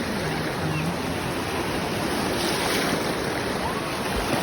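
Sea waves breaking and washing on a beach, a steady rush of surf.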